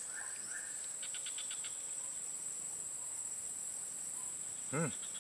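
Steady high-pitched drone of swamp insects, with a few short chirps near the start and a quick run of ticks about a second in. Near the end comes a short vocal sound from a person.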